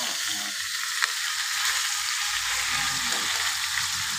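Pieces of salted lemongrass-and-chili rice-field rat frying in hot oil, with a steady sizzle and one sharp click about a second in.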